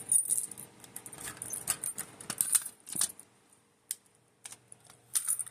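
Keys jingling and small clicks and clinks from handling a Notifier BG-12 fire alarm pull station, dense for the first few seconds and then a few scattered clicks.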